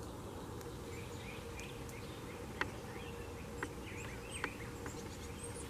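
Faint steady hum of honeybees around an open hive, with short high chirps and three light clicks from a hand working at the hive's wooden closure stick.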